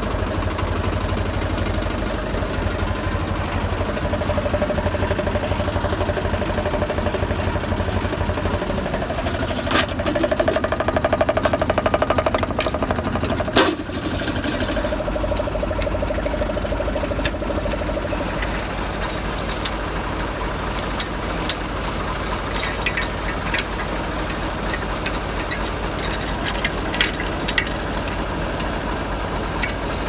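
IMT 542 tractor's diesel engine idling steadily, with a sharp metallic click near the middle and a scatter of short clinks in the second half as the steel hitch pins and linch-pin clips of the plough linkage are handled.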